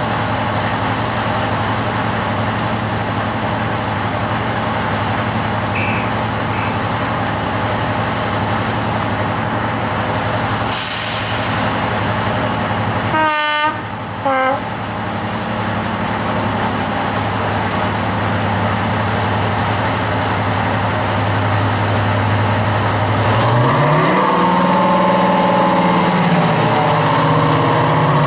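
Class 55 Deltic diesel locomotive's twin Napier Deltic two-stroke engines idling with a steady low hum. Halfway through comes a short hiss, then two short blasts on the horn, the second higher. Near the end the engines open up, the note rising and growing louder as the locomotive pulls away with its train.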